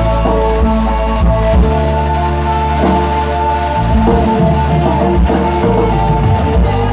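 Loud music with a heavy bass line, drums and guitar, played through a stacked speaker sound system being sound-checked.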